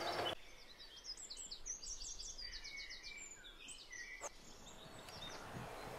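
Songbird singing faintly: a quick run of high repeated notes, then a few lower whistled notes. A single click comes about four seconds in, and a faint steady hum rises near the end.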